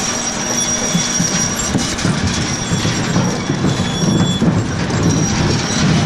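Potatoes rattling and tumbling over a hexagonal-mesh potato conveyor as a motor-driven chain unloads the wagon: a steady clatter of many small knocks, with a faint high squeal from the machinery now and then.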